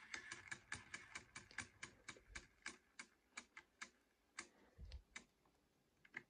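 Faint run of small metallic clicks, about five a second for some four seconds, as the strike rack of a Hermle triple-chime clock movement is moved by hand and its teeth click past the rack hook. Near the end come a soft knock and a couple of stray clicks.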